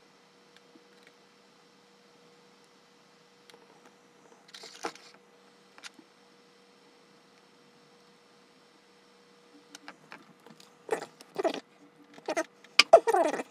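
Handling noises of a gas soldering iron and wires on a tabletop: a faint steady hum with a few soft ticks and a brief rustle, then from about eleven seconds in irregular clicks, knocks and rustles as the iron is set down, the loudest near the end.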